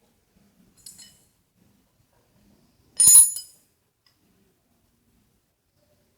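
Steel parts clinking together: a faint clink about a second in, then a louder, ringing metal clink about three seconds in.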